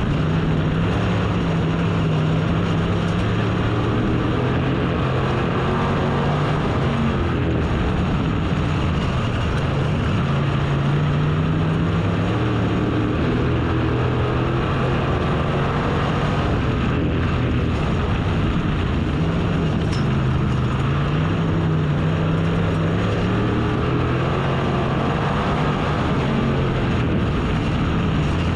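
Race car engine under hard throttle, its pitch climbing and dropping in repeated swells every several seconds as the car accelerates and lifts off while lapping, over a steady rush of noise.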